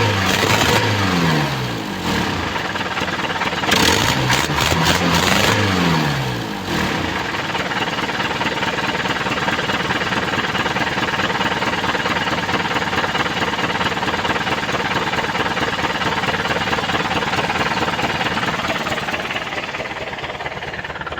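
Mitsubishi Canter's 4D32 four-cylinder diesel engine, its injectors just rebuilt, revved up and down twice in the first seven seconds, then settling to a steady idle.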